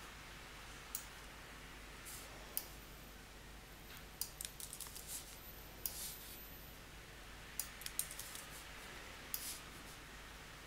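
Faint, irregular clicks of a computer mouse and keyboard: a dozen or so single sharp clicks with a quick run of them near the middle.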